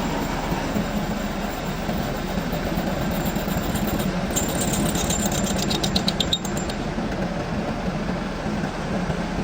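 Metal lathe running steadily with a low hum while machining a steel pulley, with a quick run of light rapid ticks in the middle.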